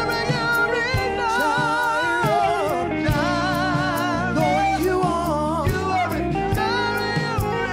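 Church praise team singing gospel worship music with a live band of drums and electric guitar, the sung melody wavering over a steady drum beat.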